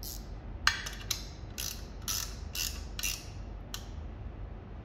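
Ratchet wrench clicking through about eight short strokes, roughly two a second, as a nut on the espresso machine's group is tightened.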